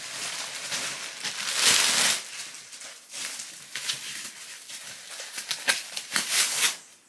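Plastic packaging crinkling and rustling as a handbag is pulled out of its plastic bag and wrapping. It is loudest in the first two seconds, then settles into scattered small crackles.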